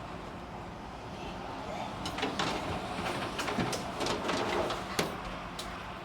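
A run of light knocks and clicks of things being handled, over a steady low hum.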